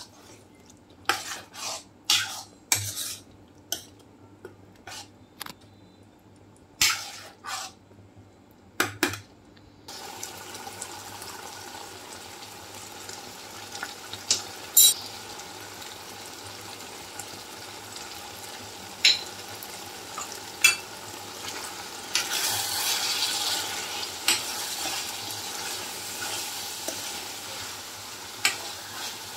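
A metal spoon clinking and scraping against a pan as chicken pieces are stirred, in separate knocks. About ten seconds in, a steady sizzle of chicken frying in oil begins and runs on under occasional spoon clinks.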